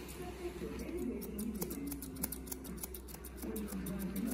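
Red-handled grooming scissors snipping rapidly through a terrier's coat around the ear, several crisp snips a second, over a low wavering sound.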